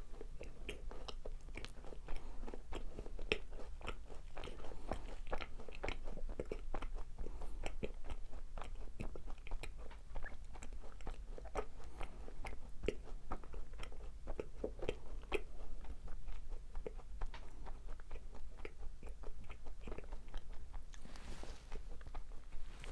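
Close-miked chewing of macarons: the crisp meringue shells crunching in a dense, irregular run of small clicks and crackles as they are bitten and chewed.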